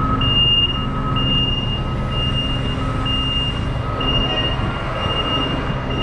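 Vehicle reversing alarm beeping steadily about once a second, over the low rumble of diesel engines.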